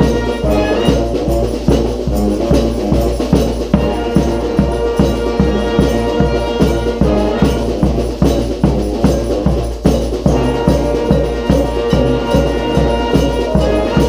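A brass street band of saxophones, sousaphone, trombones and trumpets playing a rock tune together live, over a bass drum keeping a steady beat of about two or three strokes a second.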